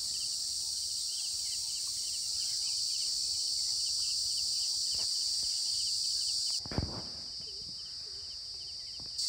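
Steady high-pitched insect chorus, a continuous buzz with a rapid pulsing chirp beneath it. It cuts out abruptly about two-thirds of the way through, just as a single dull thump sounds, and comes back near the end.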